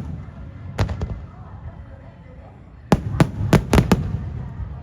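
Fireworks going off: a sharp bang about a second in, then a quick run of five or six bangs around three seconds in, over a steady low rumble.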